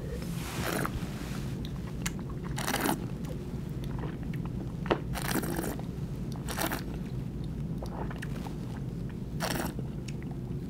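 Wine tasting in the mouth: a taster sipping red wine and drawing air through it, heard as about five short, noisy slurps at irregular intervals over a low steady hum.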